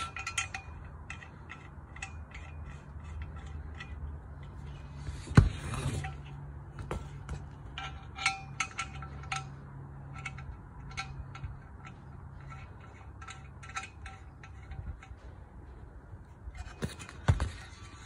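Small metal clicks and clinks as threaded levelling feet are screwed by hand into the ends of steel rack base bars, with a loud knock about five seconds in and two more near the end. A low steady hum lies underneath.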